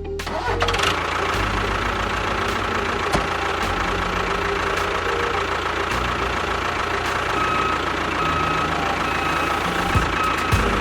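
A machine running steadily with an even, rattly mechanical noise, starting about half a second in.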